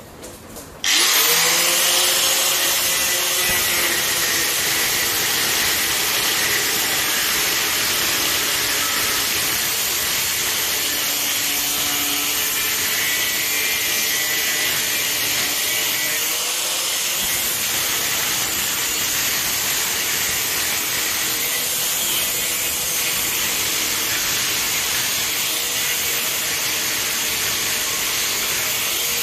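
Angle grinder switched on about a second in, then cutting into metal with the disc angled and pressed hard into the work: a loud, steady grinding hiss over the motor, whose pitch dips and recovers about halfway through as the load changes.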